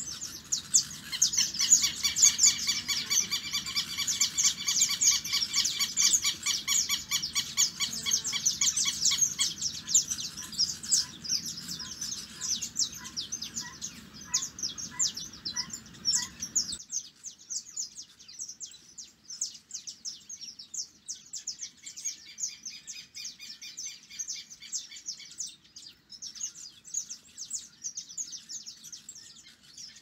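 Buff-necked ibis calling in a long, fast run of loud repeated calls. About two-thirds through, the sound cuts off abruptly and fainter high chirping of small birds continues.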